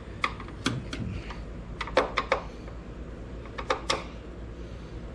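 Screwdriver tightening the two mounting screws of a headlight: a string of irregular, sharp light clicks, some in quick pairs.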